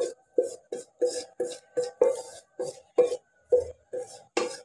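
Wooden spatula scraping and knocking minced beef out of a nonstick pan into a pot, in quick repeated strokes about three a second.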